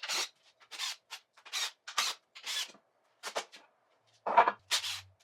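Hand tool working on a bare engine block: a run of short, raspy metal strokes, about two a second, with a louder one near the end.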